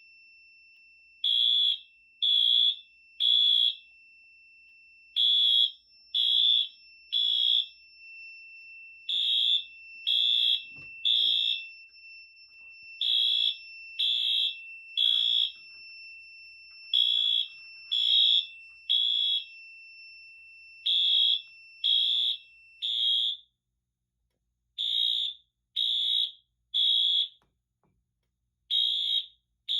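Fire alarm sounder beeping in the temporal-3 evacuation pattern: groups of three high beeps about a second apart, with a longer pause between groups. A faint steady high tone runs beneath until about three-quarters of the way through.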